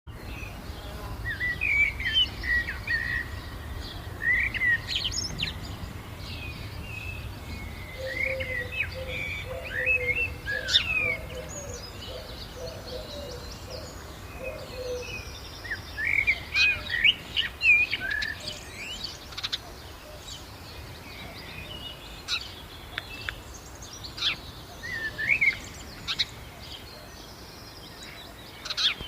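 Songbirds chirping and calling outdoors in scattered bursts of short, sharp high notes. A lower warbling call runs for several seconds in the middle.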